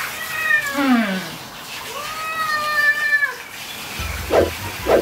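Ragdoll cat meowing in protest while being bathed: two long, drawn-out cries, the first sliding steeply down in pitch, the second held level and then dropping at the end. A couple of short, lower sounds follow near the end.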